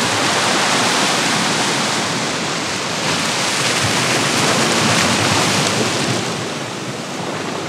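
Sea swell washing and surging against a rock ledge, with wind on the microphone; the rush swells twice and eases near the end.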